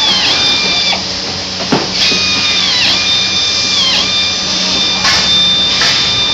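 Hand-held power screwdriver whining at high speed. Its pitch dips and recovers about once a second as it bogs down driving screws, over a steady low factory hum, with one short knock about two seconds in.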